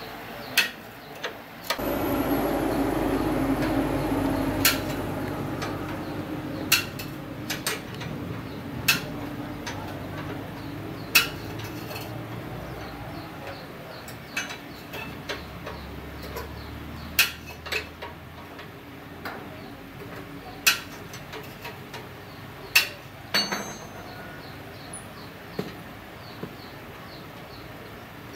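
Metal hand tools clinking and tapping, a dozen or so sharp, irregular clicks, as a wrench works at a motorcycle's rear axle and chain adjuster. A low rumble of unknown source starts abruptly about two seconds in and slowly dies away.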